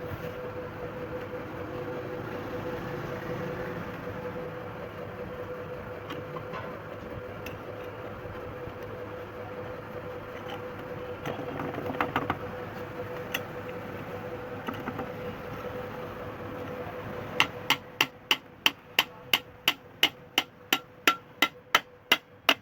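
A steady background hum with a few scattered knocks, then rapid, evenly spaced hammer strikes, about three or four a second, through the last few seconds.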